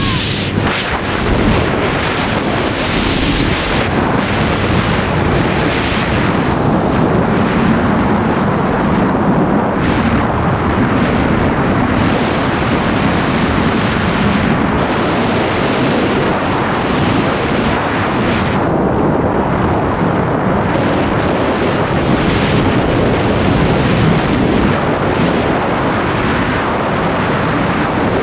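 Loud, steady rush of freefall wind blasting across the camera's microphone during a tandem skydive.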